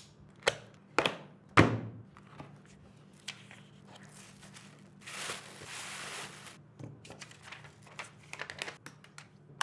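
Cardboard keyboard box being cut and opened: a few sharp knocks and thunks in the first two seconds, then a second or so of rustling as the wrapping sheet slides, and light paper crinkles and ticks near the end.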